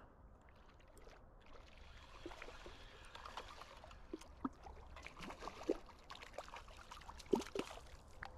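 A hooked smallmouth bass splashing faintly at the water's surface as it is reeled in, with a couple of sharper splashes near the end.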